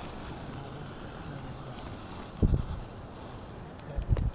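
Camping stove burner running steadily, with two dull low thumps about a second and a half apart.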